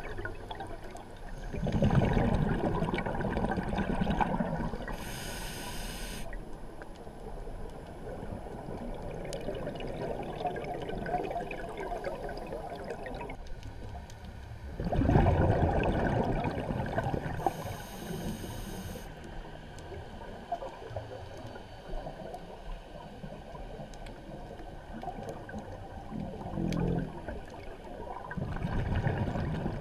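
Scuba diver breathing on a regulator underwater: twice a long exhalation of rumbling bubbles, each followed about a second later by a short hiss of inhalation through the regulator, about thirteen seconds apart; a third exhalation starts near the end.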